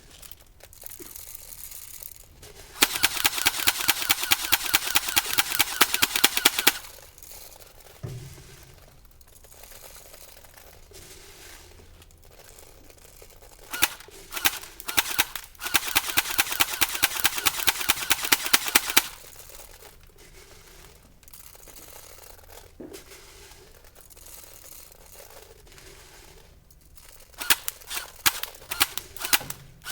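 Airsoft gun firing on full auto: two long rapid bursts of evenly spaced shots, a few single shots in between, and a short burst near the end.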